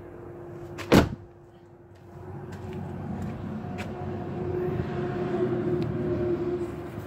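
A car door slams shut about a second in. A low steady noise with a faint hum then builds up over the next few seconds.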